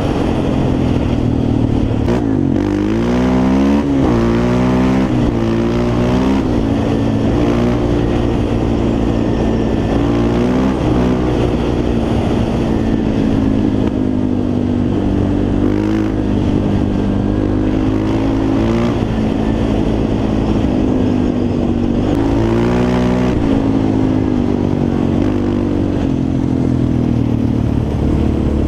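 Yamaha Raptor 350 quad's single-cylinder four-stroke engine running under riding load, its pitch rising and falling as the throttle is worked. There is a run of quick revs a few seconds in, and more rises and falls later on.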